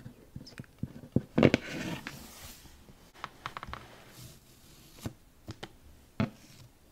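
Close-miked handling of a cardboard shoe box with a ribbon: scattered light taps and clicks, with a louder rustling scrape about a second and a half in.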